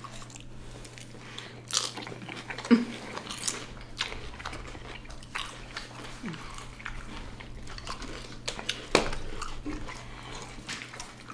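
Close-miked eating sounds: biting into and chewing a soft-bun fried chicken sandwich, with crisp crunches of potato chips and wet mouth sounds. A few crunches stand out louder than the rest, over a low steady hum.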